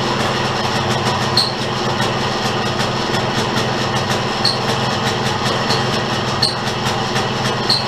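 A 1972 Victa utility lawnmower's engine running steadily and loudly. It has been brought back to running order with a cleaned spark plug and fresh fuel, and is running well.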